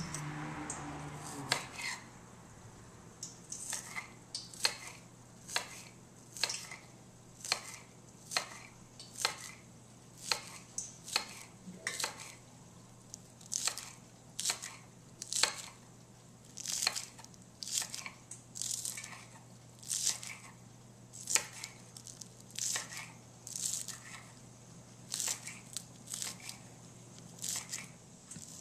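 Knife chopping green onions, single sharp cuts about once or twice a second.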